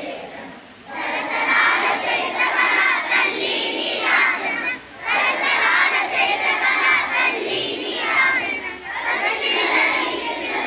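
Many children's voices shouting together, loud and continuous, with a brief break about halfway through.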